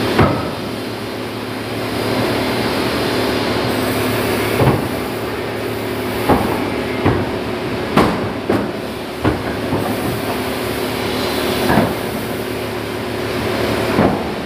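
Wooden blocks knocking against each other as they are stacked by hand, about nine sharp knocks at irregular intervals, over a steady machine hum.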